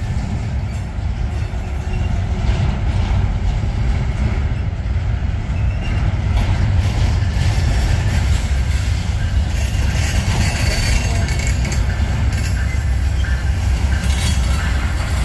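Amtrak P42 diesel locomotive leading a passenger train in toward the station, a steady low rumble that grows louder after the first couple of seconds as it nears.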